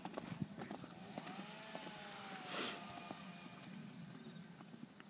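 A horse cantering on a dirt arena, its hoofbeats falling as faint, irregular thuds, with a short loud hiss about halfway through.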